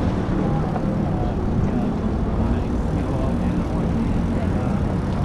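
Busy city street ambience: a steady rumble of traffic, with faint voices in the mix.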